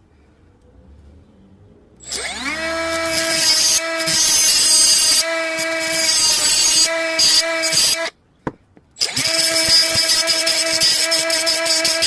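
A 3-inch grinder spins up about two seconds in with a quickly rising whine, then runs at a steady high whine while cutting a slot into a soft speaker bracket. It stops for about a second and then starts cutting again.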